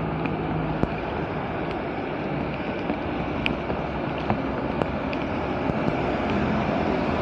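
Steady rush of rain and muddy runoff water at a blocked culvert drain, with scattered sharp ticks of drops striking.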